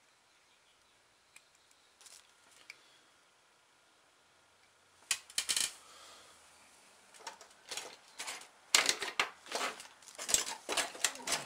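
Metal hand tools clicking and clattering against each other on a workbench as they are rummaged through. The first half is quiet with a few faint clicks; the clatter starts about five seconds in and gets busier near the end.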